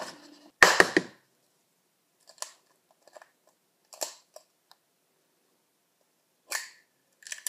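Fingers crumbling and squeezing dry cookie dough in a glass mixing bowl. There is a knock and rustle just under a second in, then short, soft crackling bursts every second or so as the crumbs are worked.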